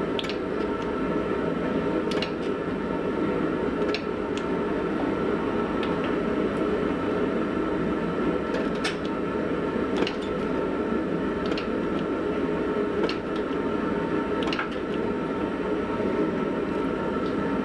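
Gas forge burner roaring steadily, with a few faint sharp clicks scattered through it.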